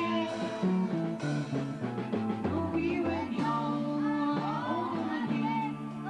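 Wedding band dance music: a singing voice over a steady stepping bass line and sustained instrument chords.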